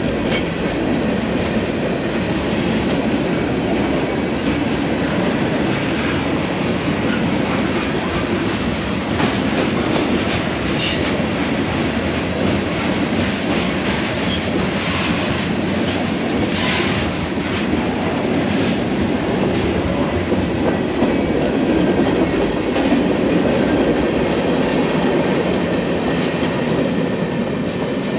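Freight train cars rolling past at close range: a steady, loud rumble of steel wheels on the rails, with a few brief higher scrapes about midway.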